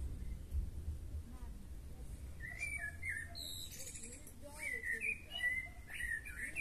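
Songbirds singing: short whistled phrases and high chirps, coming in more often from about two and a half seconds in, over a low rumble.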